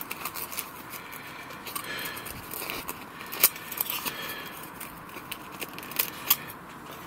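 Light clicks, taps and rustling of plastic and foam-core model pieces being handled and test-fitted together, with one sharper click about three and a half seconds in and two more near the end.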